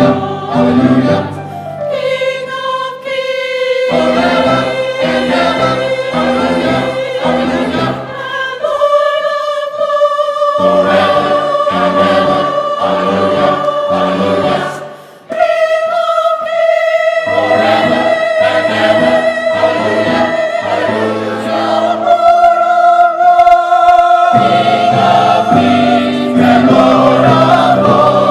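Church choir singing long held notes that change pitch every few seconds, over a steady pattern of repeated lower notes.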